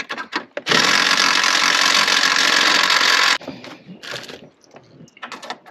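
Power drill running for nearly three seconds, drilling out a hole in the car's trunk floor, then stopping abruptly. Light clicks and knocks come before and after it.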